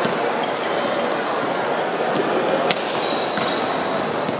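Din of a busy badminton hall: a steady wash of many voices from players and onlookers across several courts, with sharp racket-on-shuttlecock hits. The loudest hit comes about two-thirds of the way through.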